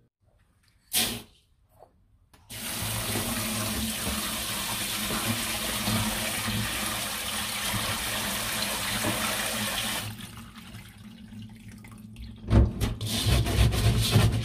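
Kitchen tap running steadily into a stainless steel sink over a mesh strainer of pearl barley, stopping about ten seconds in. Near the end, hands scrub and rub the wet barley against the strainer in quick repeated strokes.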